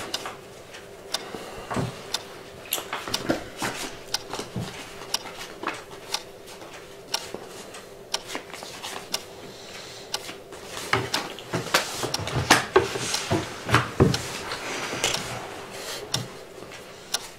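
Playing cards being handled and laid down on a wooden table, with scattered light taps and clicks, over a steady faint hum.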